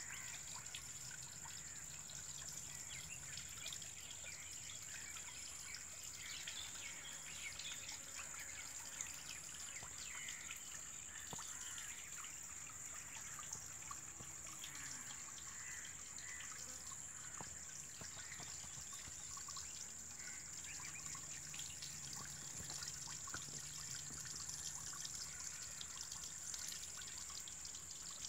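Countryside ambience over open fields: a steady high-pitched drone with many scattered bird chirps and a faint low hum beneath.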